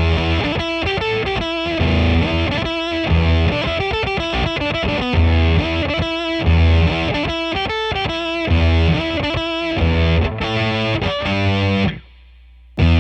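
Electric guitar played through the Octagrapher fuzz pedal, a heavily distorted, harmonic-rich tone playing a repeating riff. It cuts out briefly near the end, then comes back.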